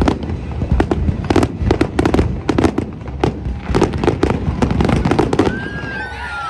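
Fireworks going off in a rapid barrage of sharp bangs and crackles, stopping about five and a half seconds in.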